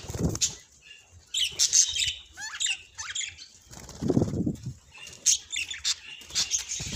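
Budgies chirping in short high calls, with brief bursts of wing flapping near the start and about four seconds in.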